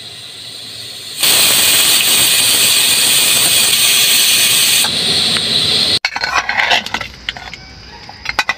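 Pressure cooker on a gas burner whistling: steam forced out past the weight valve as a loud, steady, shrill hiss for nearly four seconds, the sign that it has come up to pressure. It eases off briefly and stops. After that a metal ladle clinks and scrapes inside the cooker, stirring the mutton.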